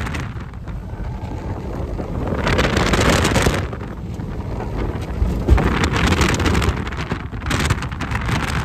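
Wind buffeting the microphone over road and tyre noise from an electric 2010 Tesla Roadster driven hard through an autocross course, swelling louder twice as the car accelerates.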